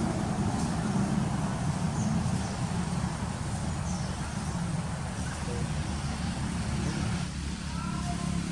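Steady low rumble of vehicle traffic, with a few faint, short, high chirps over it and some short higher tones near the end.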